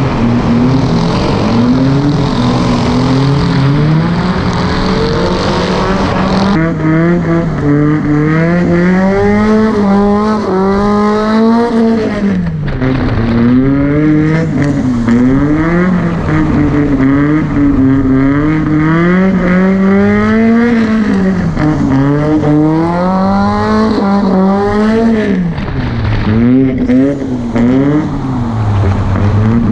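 Volvo drift car's engine revving up and down over and over as the throttle is worked through a drift, heard from a camera mounted on the car's body.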